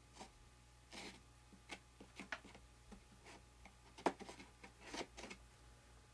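Scattered light clicks and taps of hand work on a workbench: a thin stick dabbing epoxy from a small cup and small model parts being handled. The sharpest click comes about four seconds in.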